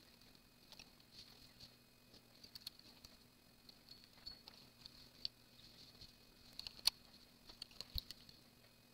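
Faint, scattered light clicks and ticks of a hand transfer tool and fingers against the metal latch needles of a Brother 930 knitting machine's needle bed, as edge stitches are picked up one at a time and hung on the needles. A faint steady hum lies beneath.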